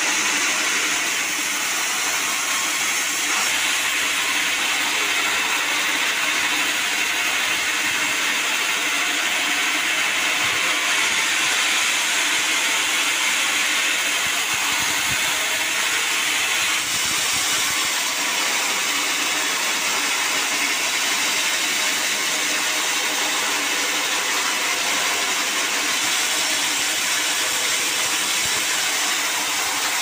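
Band sawmill running with its blade sawing through a log, a loud, steady noise of blade through wood over the machine's running.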